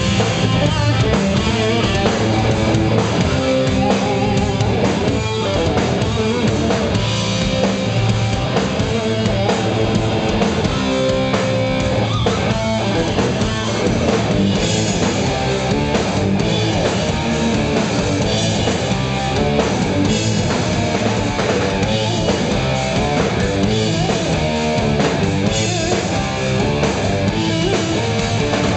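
Live rock band playing loud and steady: electric guitars over a drum kit.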